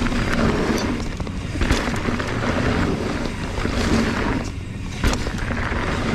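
Mountain bike riding down a dry, loose dirt trail: a steady rush of tyre and wind noise with sharp knocks and rattles from the bike over bumps.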